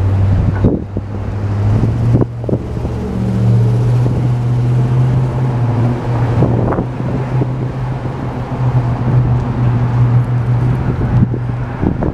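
Freight train of tank cars rolling past on elevated track: a steady low rumble and hum from wheels on the rails, with scattered clanks as the wheels pass over rail joints.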